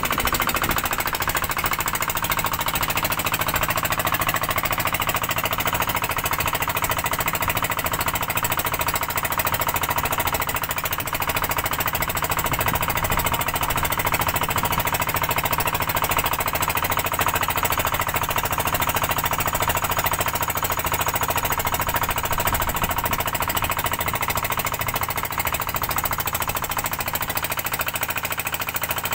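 A small fishing boat's engine running steadily and loudly while the boat is under way.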